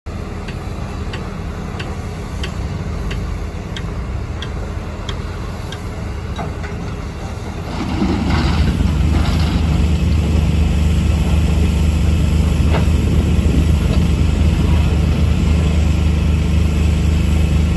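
Diesel engines of excavators and dump trucks at work in a quarry: a steady engine sound with a regular ticking about one and a half times a second. About eight seconds in it becomes louder and deeper, with a brief rush of rattling noise.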